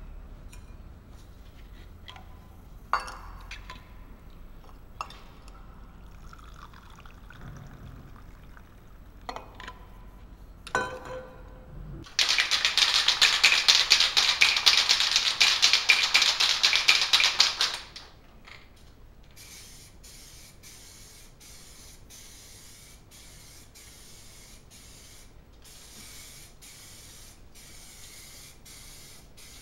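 Aerosol spray-paint can in use for about six seconds in the middle: a loud, dense rattling hiss that cuts off abruptly. Before it, a few light clicks and knocks of handling.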